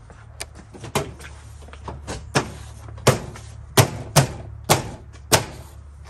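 Plastic trim and clips on the underside of a raised Chevy SUV power liftgate being pressed and worked by hand during a liftgate actuator latch replacement: a series of sharp, irregular snaps and knocks, coming thicker and louder in the second half.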